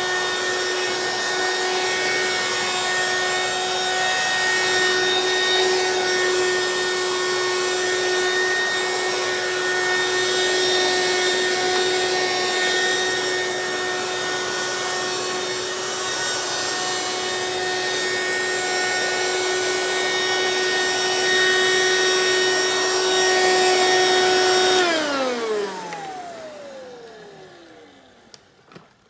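Hoover Quik Broom Encore S2551 stick vacuum's straight-suction motor running on high speed over a low-pile rug with a steady whine. About 25 seconds in it is switched off and the motor winds down, the whine falling in pitch as it fades.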